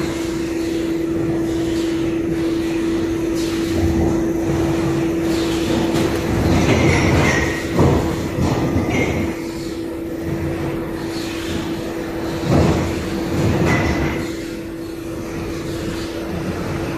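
Machinery of a plywood veneer paving line running: a steady motor hum that fades out about seven or eight seconds in, over a continuous mechanical clatter of chain conveyor and steel frame. Several loud knocks and a few short high squeaks break through.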